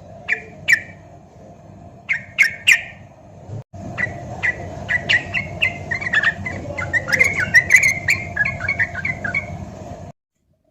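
Yellow-vented bulbul (trucukan) song: a few sharp separate chirps, then a fast, lively run of chattering notes. It stops abruptly near the end.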